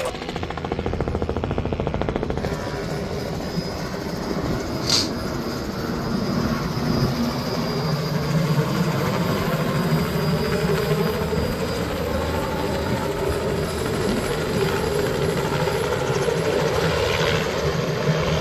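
Helicopter rotor and engine running as it flies in and hovers low, a steady thrum that slowly grows louder. A short high squeak about five seconds in.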